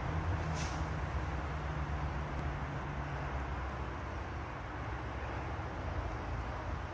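Steady, uneven low rumble of wind buffeting the microphone outdoors, over an even background hiss.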